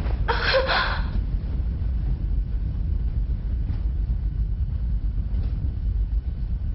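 A steady low rumble, with a brief rushing noise in the first second.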